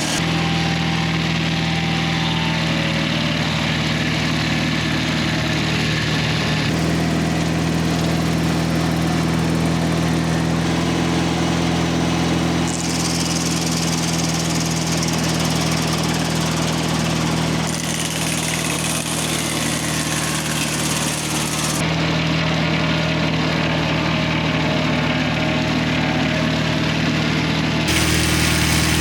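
Engine of a Mobile Dimension circle sawmill running steadily under power, with a continuous hiss, while poplar is being milled. The sound shifts abruptly about every five seconds.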